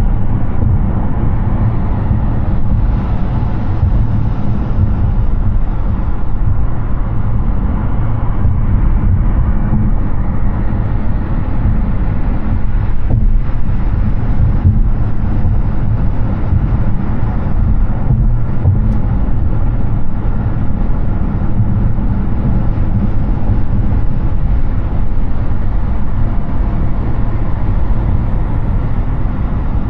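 Steady low rumble of tyre and wind noise from a Hyundai Ioniq 6 electric car driving at highway speed.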